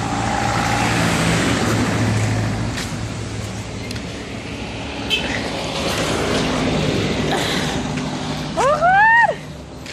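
A motor vehicle's engine runs steadily with road and traffic noise. Near the end, a short pitched cry rises and falls.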